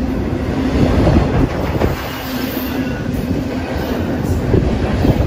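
Loud, steady rumble of a passing double-stack intermodal freight train's well cars, steel wheels on the rails with a run of knocks and clatter.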